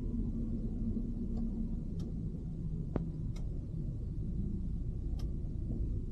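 Car driving through city streets: a steady low rumble of engine and road, with a hum that drops in pitch about two seconds in. About five sharp ticks are scattered through it.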